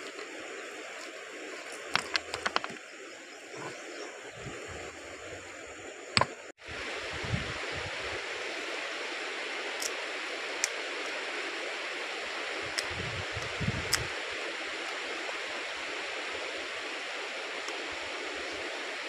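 River water flowing steadily over a stony bed, with sharp clacks of stones being set against one another about two seconds in and again around six seconds.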